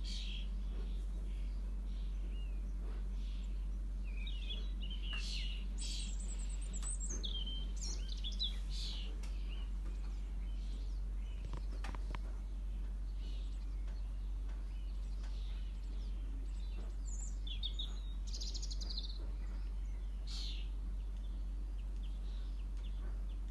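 Small songbirds chirping now and then, busiest about a quarter of the way in and again about three-quarters through, over a steady low hum.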